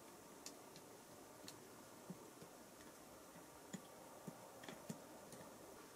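Near silence with faint, irregular light ticks, about ten in six seconds: fingertips tapping the touch buttons of an induction cooker's control board, which gets no response.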